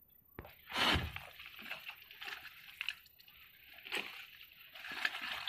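Dry leaf litter and plant stems rustling and crackling as they are handled, with a louder bump about a second in.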